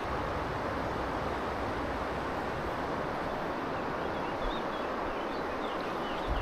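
Steady rushing of river water, with a low rumble of wind on the microphone.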